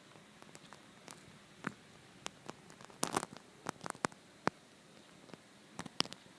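Irregular light clicks and taps over a faint hiss, with a quick cluster of them about three seconds in.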